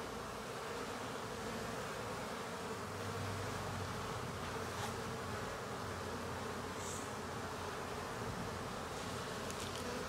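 A swarm of honey bees buzzing steadily around an open hive as they are hived onto frames. This is the hum of a newly hived swarm starting to move in.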